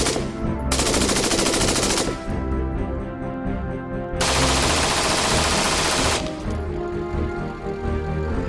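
Heckler & Koch XM8 5.56 mm rifle firing a burst on full automatic about a second in, with another long loud burst about four seconds in, over background music.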